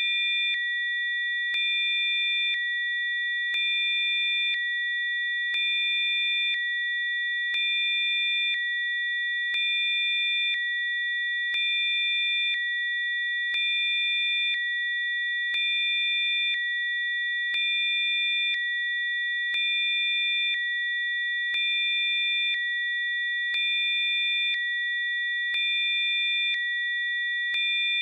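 Synthesized Rife-frequency tones: a chord of steady, high electronic sine tones held without a break. A fainter, lower tone switches on and off about once a second, so the sound pulses gently once every two seconds.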